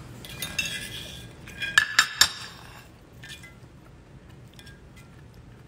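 A fork clinking and scraping against a plate while eating, with a cluster of sharp, ringing clinks about two seconds in and only light taps after that.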